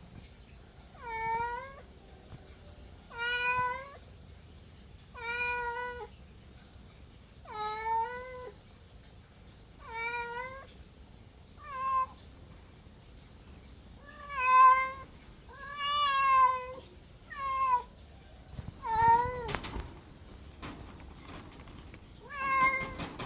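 A cat meowing over and over, about eleven meows roughly every two seconds, each rising and then falling in pitch. A few sharp clicks sound near the end.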